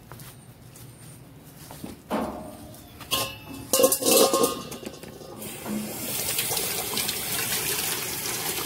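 Water running from a hose into a stainless steel dog bowl, a steady splashing hiss that starts about five and a half seconds in as the bowl fills. Before it there are a few short, louder noises.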